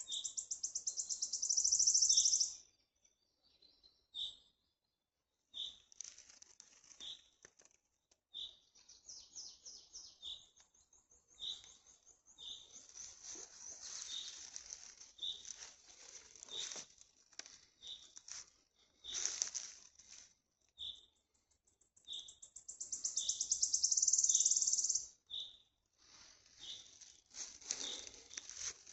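Forest birdsong: a short high note repeats about once a second, and several fast, very high trills come in between. The loudest trills swell up at the start and again about 23 seconds in.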